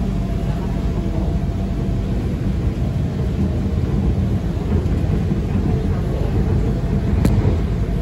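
Bangkok Yellow Line rubber-tyred monorail train running along its elevated guideway, heard from inside the car as a steady low rumble with a faint hum. A single short click or knock about seven seconds in.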